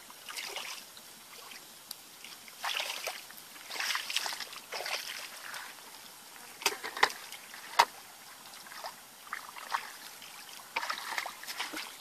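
Hands splashing and sloshing in shallow, muddy water in short irregular bursts while groping for fish, with a few sharp slaps near the middle.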